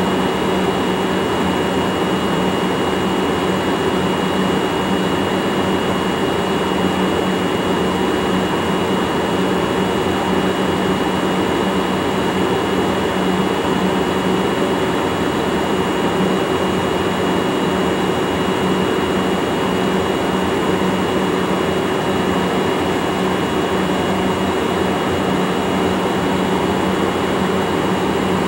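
JR Freight EF64 1000-series electric locomotives standing at a platform, their blowers and auxiliary machinery running with a steady whir, a low hum and a thin high whine.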